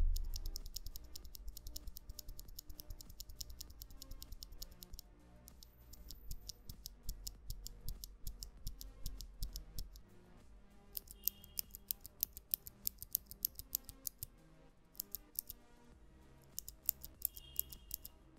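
Gateron mechanical keyboard switches pressed in several fast runs of sharp clicks, with short pauses between the runs, over faint background music. A low thump sounds at the very start.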